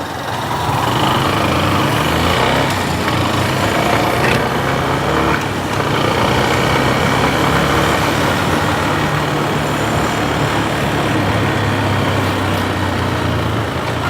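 Motorcycle engine running while being ridden, its note shifting in pitch a few times, over a steady rushing noise.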